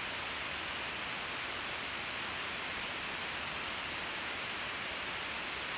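Steady, even hiss of background noise with no distinct strokes, scrapes or changes; no razor strokes stand out above it.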